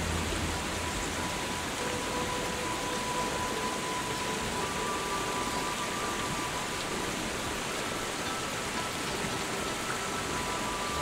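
Small mountain stream running: a steady, even rush of water.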